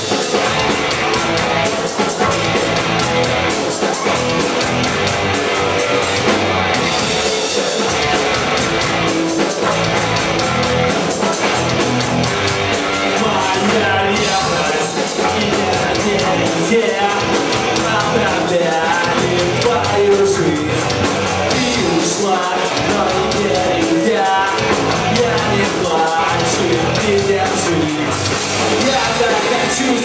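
Rock band playing live: electric guitars, bass and drums, with fast, even cymbal strokes that stop briefly twice, about a quarter and halfway through.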